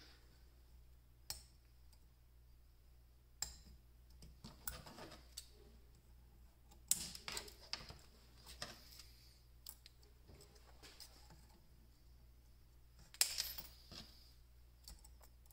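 Faint, scattered clicks and taps of thin nickel strip being handled and pressed into place on an 18650 lithium-ion battery pack. The two louder clicks come about seven seconds in and near the end.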